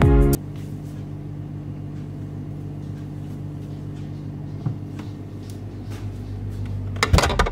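A kitchen appliance running with a steady low electrical hum. There is a single light knock near the middle and a few sharp clicks and knocks near the end.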